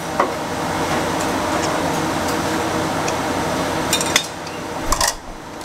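A few light clinks of bowls and utensils over a steady background din, which falls quieter about four seconds in.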